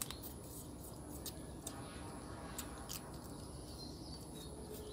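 Faint scattered clicks and mouth smacks of people eating crab, over a steady high-pitched whine.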